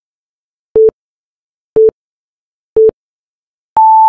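Countdown timer beeping: three short low beeps a second apart, then one longer, higher beep as the count reaches zero, signalling that time is up.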